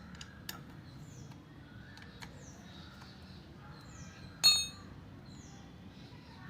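A single sharp metallic clink with a short ring about four and a half seconds in, from a metal tool or part knocking while the motorcycle's oil filter cover is being undone. Birds chirp repeatedly throughout, with a couple of faint taps.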